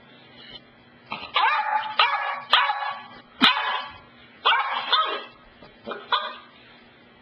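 Beagle puppy barking repeatedly: about seven or eight short, loud barks in quick runs, starting about a second in and stopping a little before the end.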